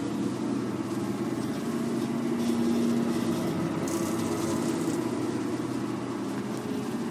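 Enerpat e-waste shredder running empty, its motor and gearbox giving a steady hum, with a brief higher hiss about four seconds in.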